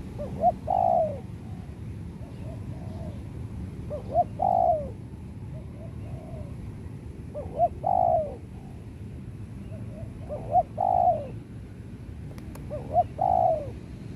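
Spotted dove cooing: five repeated call phrases about three seconds apart, each a short note, a quick second note, then a louder, longer coo that falls away.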